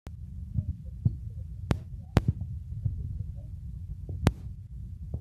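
Wind buffeting a handheld phone's microphone: a steady low rumble, with handling clicks from the phone, a pair of sharp clicks about half a second apart and another about two seconds later.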